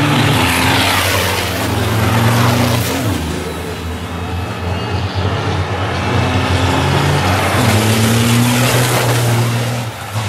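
Racing trucks' big turbo-diesel engines running hard, the engine note rising, dropping sharply about three seconds in, and climbing again towards the end.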